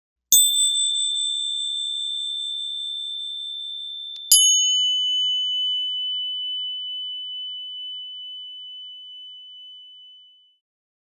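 Coins struck twice, about four seconds apart, each ringing with a long, clear, high-pitched tone that slowly dies away; the second ring is lower in pitch and lasts about six seconds.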